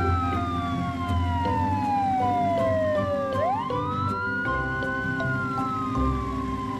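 Police car siren wailing: a long slow fall in pitch, a quick rise about three and a half seconds in, then another slow fall.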